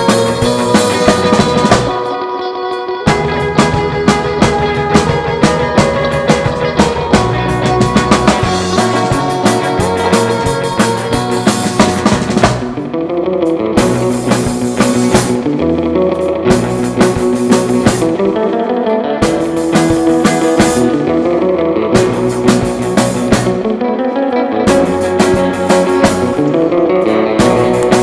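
Rock band playing, with a drum kit and electric guitar.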